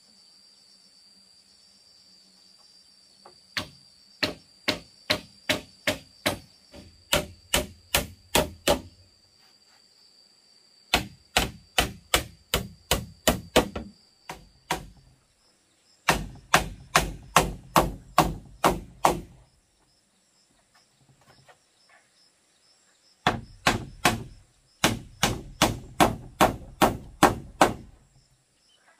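Hammer driving nails into wooden planks and beams: four runs of sharp strikes, about two to three a second, with short pauses between the runs.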